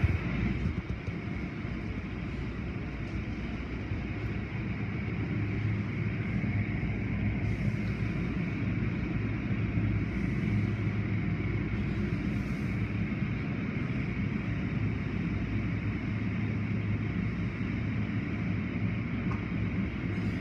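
Automatic tunnel car wash machinery running, heard from inside a car: a steady rumble and hum from the motors and turning cloth brushes, with water spraying. Brief hissing bursts come about eight, ten and twelve seconds in.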